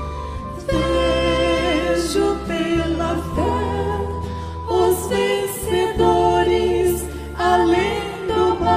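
Gospel song: sung vocal lines over sustained instrumental accompaniment with a steady low bass, swelling louder about halfway through and again near the end.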